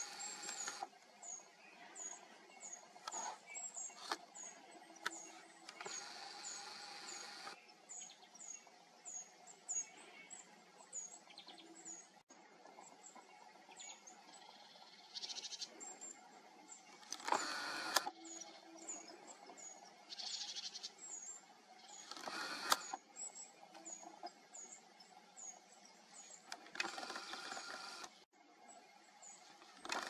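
Faint high-pitched bird calls: short thin chirps repeating two or three times a second, with a few brief rushes of noise.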